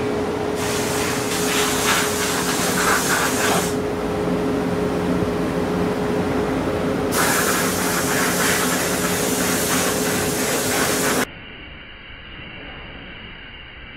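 Compressed air hissing in two long blasts inside a glove-box blast cabinet, blowing loose powder off a 3D-printed plastic part, over a steady machine hum. About eleven seconds in the sound drops to a quieter, steady hum.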